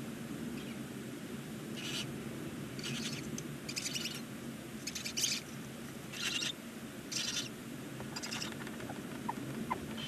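Barn owl giving a series of short, raspy hissing calls, about one a second, over a steady low hum.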